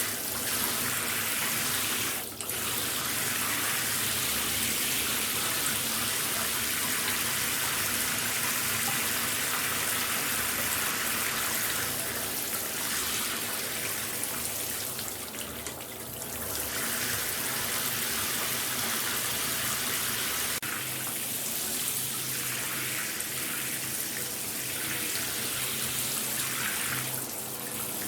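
Shower running: a steady spray of water hissing down, briefly dipping in level a few times.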